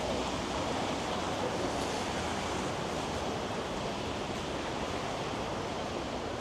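Steady rushing noise of city street traffic and wind, with no distinct events.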